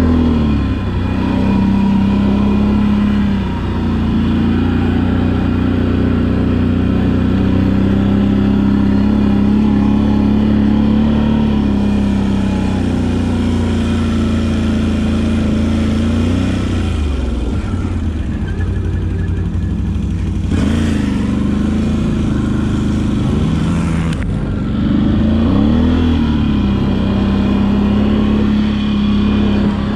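Can-Am ATV engine running under throttle while the quad is ridden over sand and dirt, its pitch falling and climbing again three times as the throttle changes. A few seconds of rushing noise join in about two-thirds of the way through.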